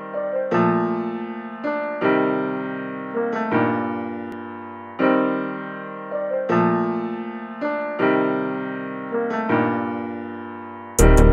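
Background music: slow piano chords struck about every second and a half, each ringing out and fading. Drums come in near the end.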